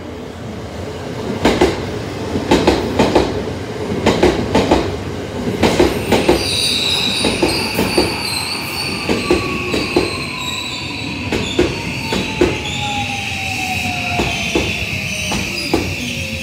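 JR West 323 series electric train pulling into the station and slowing: wheels clack over rail joints, the clacks growing further apart as it slows, with a steady high squeal from about six seconds in and a whine that falls steadily in pitch.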